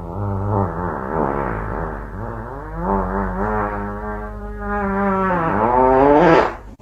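A long, buzzy fart sound that wavers in pitch for several seconds, then rises and cuts off abruptly near the end.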